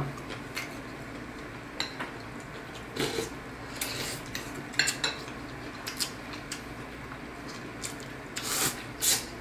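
Eating pho: brief slurps of rice noodles, the longest near the end, among light clinks and taps of chopsticks and spoons against ceramic bowls.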